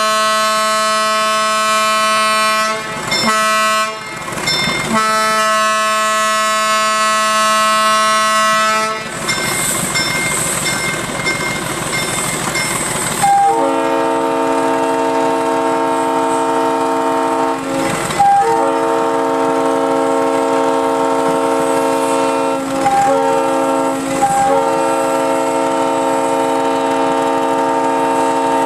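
Railroad steam whistles blowing long blasts in a whistle salute. One whistle sounds with two short breaks, then a stretch of steam hiss, then a different multi-note chime whistle sounds with a few brief breaks.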